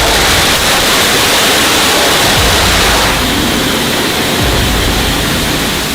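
A lit firework going off with a loud, steady rushing hiss that eases a little about halfway through.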